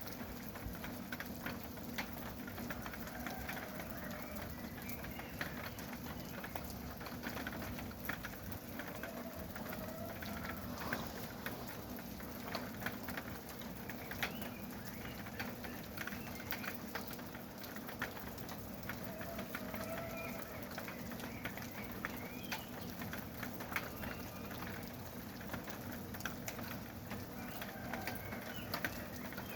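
Steady rain falling, thick with sharp ticks of individual drops, with faint short bird calls recurring every few seconds.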